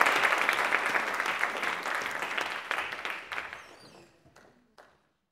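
Audience applauding, the clapping dying away over the last two seconds, with a few final single claps near the end.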